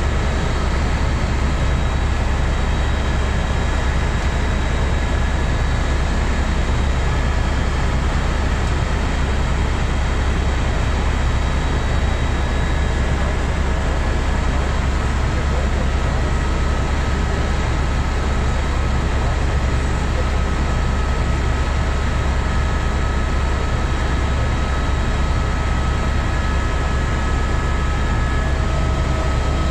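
Helicopter engine and rotor noise heard inside the cabin in steady forward flight: a loud, unchanging deep drone with a few faint steady whining tones above it.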